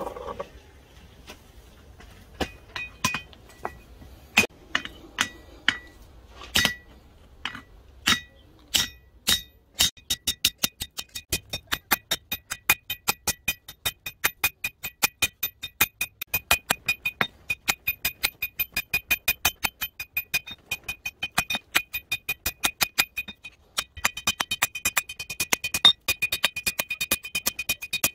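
Hand hammer forging a red-hot blade of bearing-race steel on an anvil. A few spaced blows come first, then a steady run of quick blows, about four or five a second, each ringing off the anvil, with a brief pause near the end.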